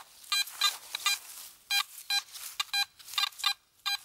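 Metal detector giving a series of short, broken beeps as its search coil is swept back and forth over a buried target, a scratchy, choppy signal.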